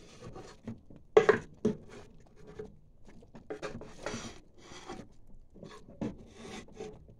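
Irregular short scrapes and knocks from a square pan of chicken cooking in its own juices on the stove, the loudest about a second in.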